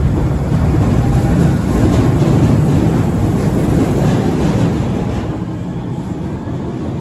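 Osaka Metro Chuo Line 20 series train running, a steady wheel-and-rail rumble that swells over the first couple of seconds and eases off after about five seconds.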